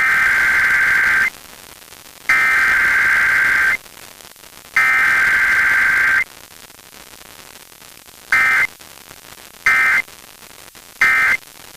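Emergency Alert System SAME data bursts: three long header bursts of harsh electronic screeching about a second apart, then three short end-of-message bursts. A low hiss fills the gaps between them.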